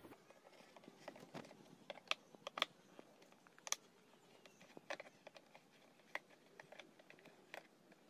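Faint, irregular light clicks and taps of a metal screwdriver working against the carburetor and air-filter housing of a Stihl MS 382 chainsaw, with the engine off.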